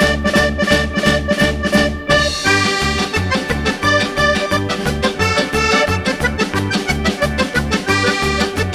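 Upbeat background music led by an accordion over a steady bouncing beat, the arrangement shifting about two seconds in.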